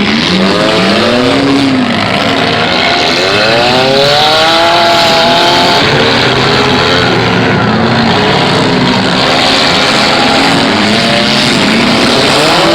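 Several demolition derby car engines running and revving at once, their pitch rising and falling again and again over a constant loud din.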